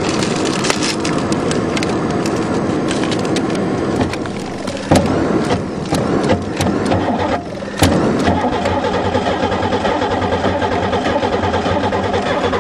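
Buick Regal's 3.8 V6 being cranked over by the starter motor without firing, in stretches broken briefly twice.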